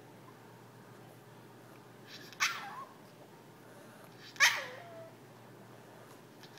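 Yorkshire terrier giving two short barks about two seconds apart, each falling in pitch: demand barking to get someone to play.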